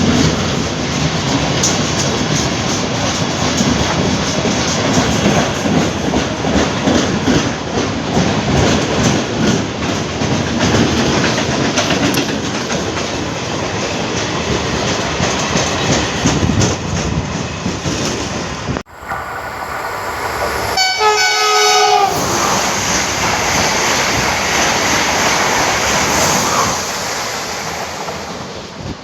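A train running past close by, its wheels clattering over the rail joints. After a sudden break, a train horn sounds once for about a second, and then the train is heard running past again, fading near the end.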